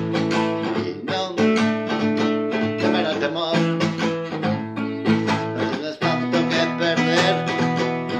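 Classical guitar strummed in a steady rhythm of chords.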